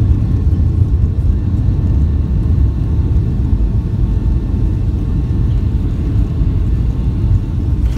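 Cabin noise of a Boeing 757-200 rolling out on the runway after touchdown, with the wing spoilers up: a steady low rumble with a faint steady whine above it.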